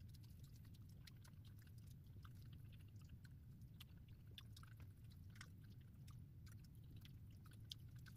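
Faint chewing and small wet mouth clicks of someone eating spaghetti, irregular throughout, over a low steady hum.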